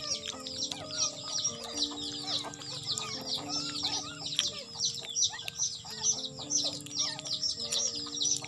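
Background music with slow, held notes under a dense, continuous chorus of high, rapid bird chirping, several chirps a second.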